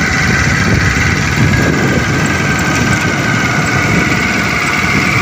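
Motorbike engine running while being ridden, with a steady rush of wind and road noise over the microphone.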